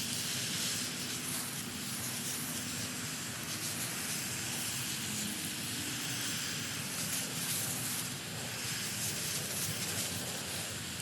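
Garden hose spraying water over vegetable beds: a steady hiss of spray on leaves and soil.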